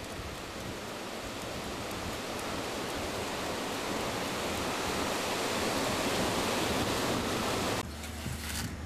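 Surf washing up a flat sandy beach: a steady rushing hiss that slowly swells, then cuts off abruptly near the end.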